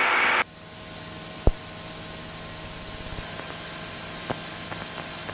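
Steady engine and propeller drone of a single-engine light aircraft in cruise, heard inside the cockpit with a hiss and a few thin steady tones. A short burst of louder hiss at the very start cuts off sharply, and a single click sounds about a second and a half in.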